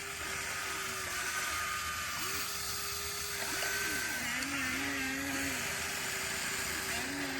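Remote-control hydraulic excavator's motors whining, repeatedly spinning up and winding down as the controls are worked, over a steady hiss.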